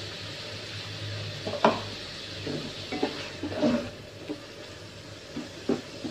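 Snails sizzling and frying in a wok as liquid is poured in from a mug. A spatula then stirs them, scraping and knocking against the pan several times.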